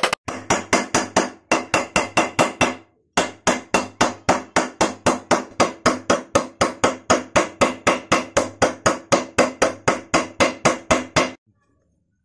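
Steel hammer striking to drive a ball bearing into its seat in an aluminium motorcycle crankcase half, in quick even blows about four a second. There is a short pause about three seconds in, and the hammering stops about a second before the end.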